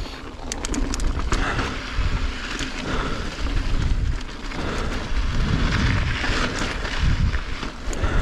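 Mountain bike riding over slickrock: a heavy rumble of wind on the microphone and tyres on rock, which swells and fades, with scattered sharp clicks and rattles from the bike.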